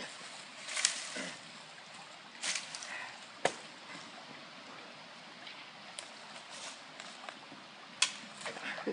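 Dry leaves and brush rustling and twigs cracking as a long branch is worked down a creek bank toward the water: scattered short crackles, a sharp snap about three and a half seconds in and a flurry near the end, over a faint steady hiss.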